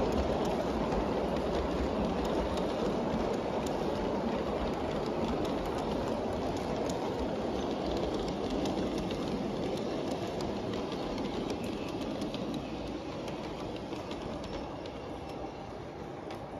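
LGB G-scale model passenger cars rolling on brass track, a steady rolling rumble of metal wheels with many small clicks over the rail joints and turnouts, slowly getting quieter as the train moves away.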